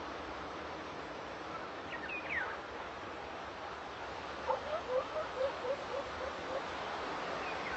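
Outdoor background hiss with an animal calling: a few quick high chirps about two seconds in, then a run of about eight short, evenly repeated calls a little past the middle.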